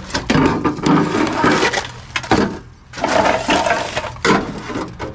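Thin scrap aluminum pieces scraping, rattling and clattering together as they are pulled out of a pile of debris.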